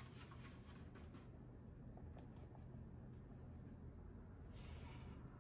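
Faint scratching of a paintbrush working acrylic paint onto canvas: several short strokes in the first second, then a longer brushing near the end, over a low steady room hum.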